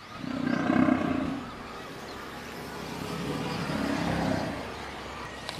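Lions growling and snarling as several lionesses attack a male, loudest in the first second and a half and swelling again from about three to four and a half seconds in.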